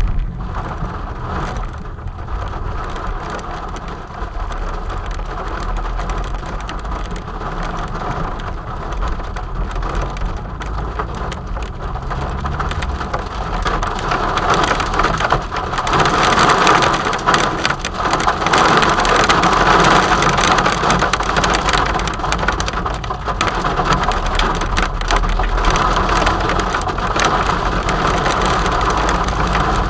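Heavy rain drumming on the car's roof and windscreen, heard from inside the cabin, with the car's engine and tyres on the wet road underneath. The rain gets louder about halfway through and stays heavy.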